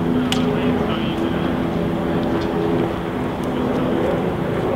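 Steady engine drone holding a constant pitch, with a few faint clicks over it.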